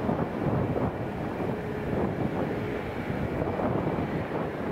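Jet airliner engines on approach to land, a steady distant noise with a faint whine coming and going, under wind buffeting the microphone.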